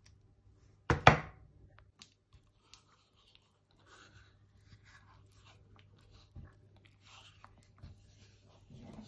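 A wooden spoon stirring and scraping soft butter in an aluminium pot, with a sharp knock about a second in and faint squelching scrapes and small knocks after it. A low steady hum runs underneath.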